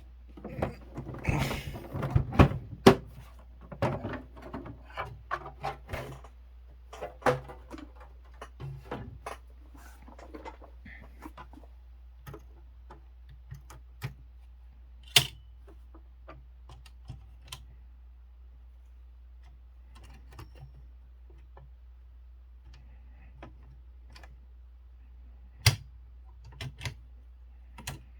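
Kyungbang Clover Topstar 10S manual typewriter: keys striking in a quick run of clicks for the first several seconds, then slowing to scattered single strikes, with two loud clacks about halfway through and near the end.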